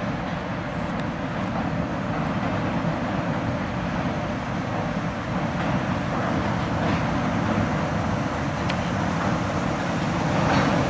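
New York City Subway 1 train pulling into the terminal station: a steady rumble of wheels on rail that grows slightly louder as it nears. Near the end comes a brief, louder burst of higher-pitched wheel noise.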